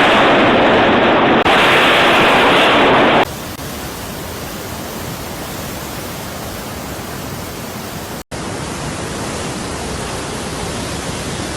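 Steady rushing water noise, with no voices or tones. It changes abruptly about three seconds in, becoming quieter and thinner. It drops out for a moment about eight seconds in, then carries on.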